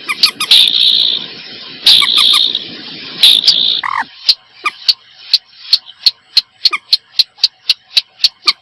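Calls of marsh birds from a bird-lure recording. Harsh, raspy calls in the first half give way about halfway through to a rapid, even series of sharp clicking notes, about three a second.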